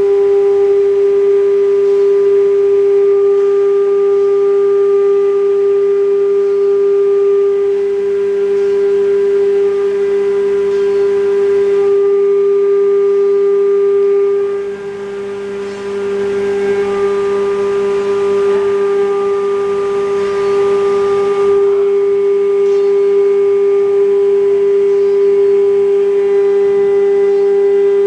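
The 9 kW ATC spindle of a CNC router runs with a steady high whine while its bit cuts MDF. Around the middle the sound dips briefly, then a rougher cutting noise rises under the whine for several seconds.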